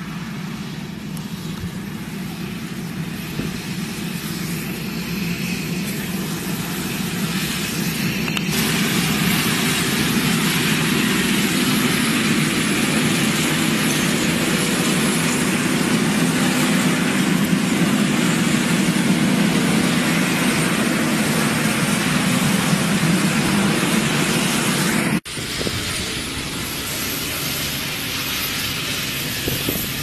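Zunhammer slurry tanker on a Claas Xerion working a tilled field with its injector: a steady engine drone with the rumble of tyres and injector tines in the soil. It grows much louder about a third of the way in as the machine passes close, then drops off suddenly about five seconds before the end.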